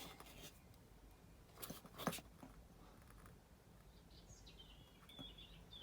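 Near silence, broken by two faint clicks about two seconds in and a faint high, wavering chirping near the end.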